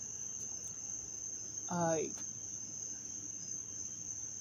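A short wordless vocal sound from a woman about two seconds in, over a steady high-pitched whine that holds one pitch throughout.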